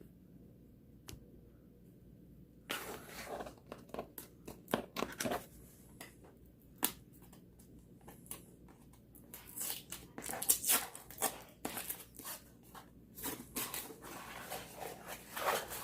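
A sealed cardboard product box being torn open by hand, with its seal tearing and the packaging crinkling and rustling in irregular bursts, starting about two and a half seconds in.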